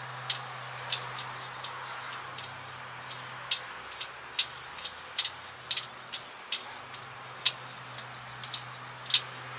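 A string of sharp, irregular metallic clicks as spring retaining clips are worked off the wheel studs of a rear brake disc by hand.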